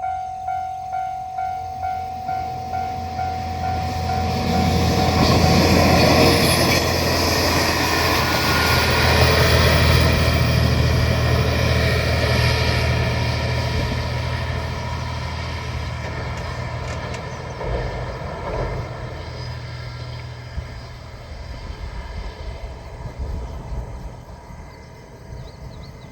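A level-crossing bell rings about twice a second, then a JR Shikoku 1000-series diesel railcar runs past. Its low engine drone and the rush of wheels on rail swell loud within a few seconds, drown the bell, and fade slowly away.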